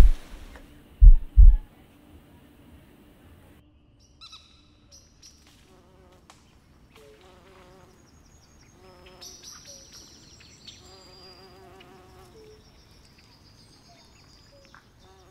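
Three deep, loud thuds in the first second and a half. From about four seconds on come sparse insect-like buzzing and chirping calls, with a warbling buzz between nine and twelve seconds and some high thin whistles.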